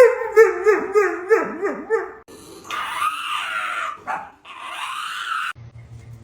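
A dog howling in a run of short rising-and-falling cries, about four a second. These give way to two longer, rougher cries. Near the end the sound cuts off suddenly to a low steady hum.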